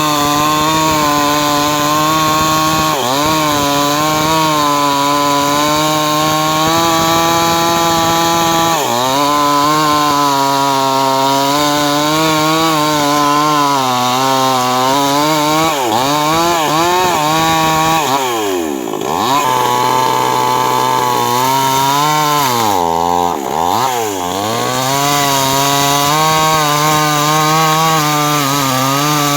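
Two-stroke chainsaw running at high revs while cutting through a timber beam. Its engine pitch sags and recovers several times as the chain loads up in the wood, dropping furthest twice about two-thirds of the way through.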